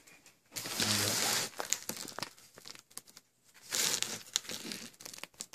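Rustling and crinkling handling noise in two bursts: one about a second long shortly after the start, a shorter one near four seconds in.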